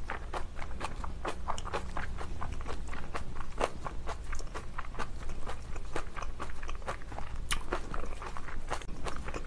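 Close-miked chewing of napa cabbage kimchi: an irregular run of wet crunches, several a second.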